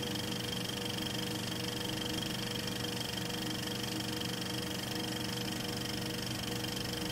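A steady mechanical whirr holding several fixed tones, unchanging in level throughout.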